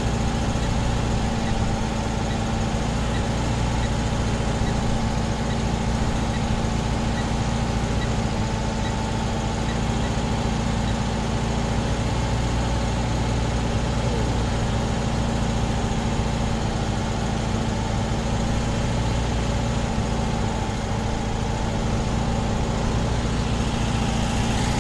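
Electric motor driving the cherry picker's boom, running steadily with a low hum under switch test; the motor is working hard and drawing heavy current.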